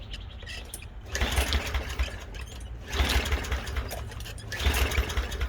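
Three pulls on a lawnmower's recoil starter, each cranking the engine for about a second without it catching. The engine was fogged for storage, and the spark plug is wet and has to be pulled and dried before it will start.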